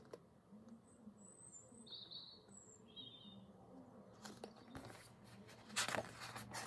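Quiet room with a few faint, short, high bird chirps about one to three seconds in. Near the end, a brief burst of rustling and handling noise as a paperback picture book is lowered.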